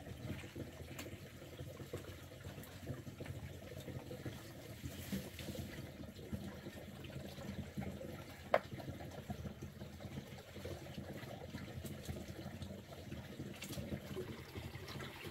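Water trickling steadily, with one sharp click about eight and a half seconds in.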